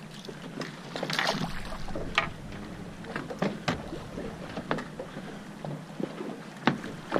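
Irregular knocks and splashes aboard a small fishing boat on the water, over a steady low background hum.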